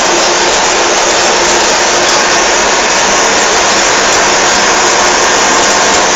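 Mercedes-Benz 911 timber truck's diesel engine running steadily while under way, a loud, even rush of engine and road noise.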